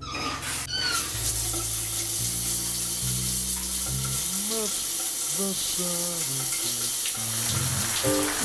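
Shower being turned on at a chrome cross-handle valve: brief squeaks as it turns, then the spray running as a steady hiss.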